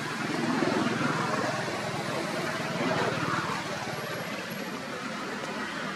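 A motor engine running close by, its level swelling about half a second in and again around three seconds, with a faint murmur of voices under it.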